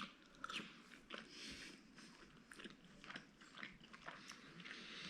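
Faint chewing of a mouthful of meat stew: soft, irregular mouth clicks and smacks, with one sharper click at the start.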